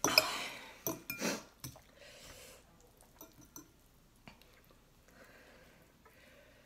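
Metal forks clinking and scraping against a ceramic noodle bowl, a quick run of sharp clicks in the first couple of seconds, then only a few faint taps.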